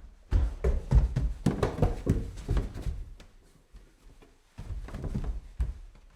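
Footsteps climbing stairs: a quick run of thudding steps, a short lull, then another run of steps about two-thirds of the way in.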